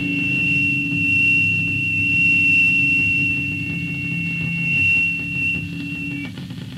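Electric guitar feedback from a punk cassette recording: a steady high-pitched squeal held over lower ringing notes, stopping about six seconds in.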